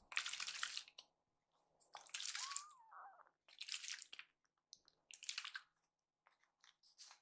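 Four short bursts of soft rustling against a fluffy towel, each under a second. One faint, thin kitten mew rises and falls about two and a half seconds in.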